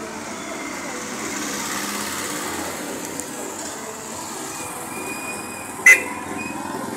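Motorcycle-sidecar tricycles driving past close by over a steady din of traffic and people. A single sharp metallic clank rings out about six seconds in.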